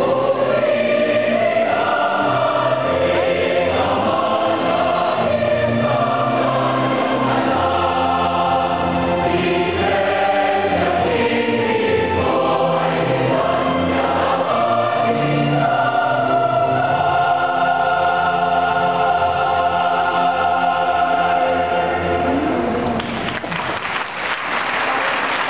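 A massed choir of about a thousand voices singing with an orchestra, ending on a long held chord. Audience applause breaks out near the end as the music stops.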